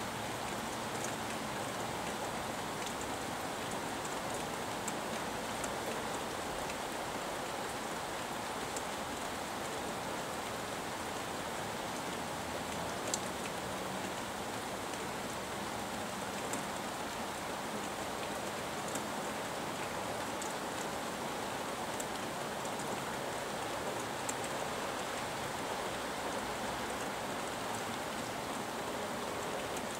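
Steady rain falling, an even hiss with scattered sharp ticks of drops, the loudest about thirteen seconds in.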